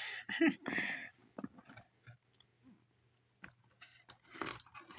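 Scattered light clicks, knocks and crunches from a small RC crawler truck and its cardboard-and-tape course as the tipped-over truck is handled and set back on its wheels, with a louder crunchy rustle about four and a half seconds in.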